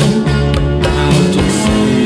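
Studio-recorded band music: drums keeping the beat under bass and electric guitar.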